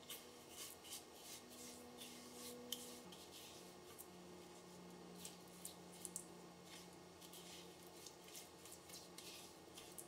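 Faint scraping of a silicone spatula stirring granulated sugar and water in a pan, heard as soft, gritty scratches at irregular intervals over a faint low hum.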